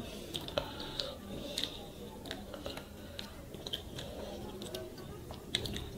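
Eating by hand: fingers mixing rice with fish curry on the plates and picking at fish, giving many small irregular clicks and taps.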